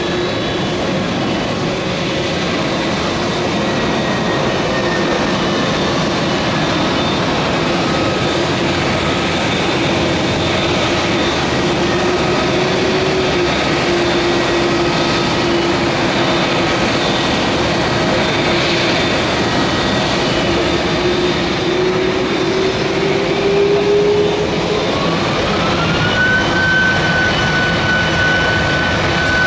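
Jet airliner engines: a steady, loud rumble with a held whine under it. A little over three-quarters of the way through, a whine climbs sharply and holds, then rises again near the end as an ANA Boeing 767's engines power up on the runway.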